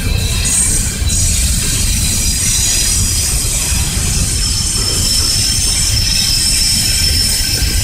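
Double-stack intermodal freight cars rolling slowly past with a continuous low rumble, their steel wheels squealing in several high, steady tones.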